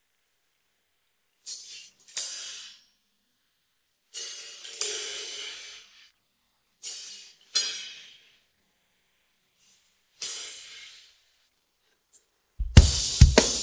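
Isolated studio drum track: sparse cymbal hits, mostly in pairs, each ringing and fading away, with silence between. Near the end the full drum kit comes in with bass drum, snare and hi-hat.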